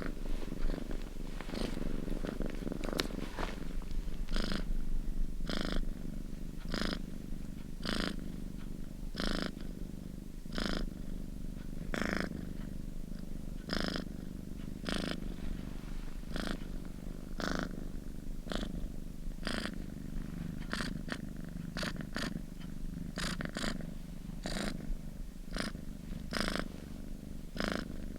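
Domestic cat purring steadily, the purr rising with a breathy rush on each breath, about every second and a half.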